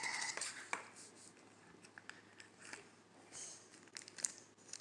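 Faint crinkling and rustling of a thin plastic wrapper being peeled off a miniature toy hot dog, with scattered small clicks from handling the little plastic pieces.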